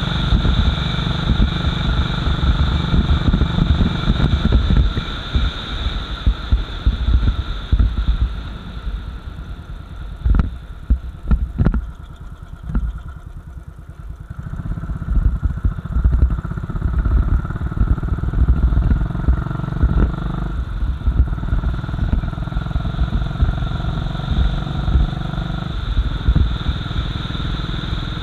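Royal Enfield Bullet 500's single-cylinder four-stroke engine running on the move, easing off and going quieter for a few seconds around the middle, with a couple of sharp knocks, before pulling away again.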